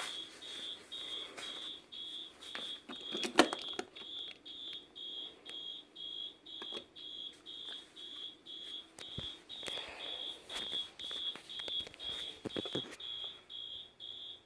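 Fire-alarm sounder beeping steadily, a high-pitched beep about twice a second without pause. A sharp knock about three and a half seconds in is louder than the beeping, and there are a few fainter knocks.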